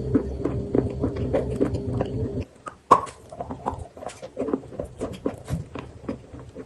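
Close-up chewing and crunching of chalk with paste: a quick run of small crunches and clicks, with one sharper crunch about three seconds in. A steady low hum underneath stops about two and a half seconds in.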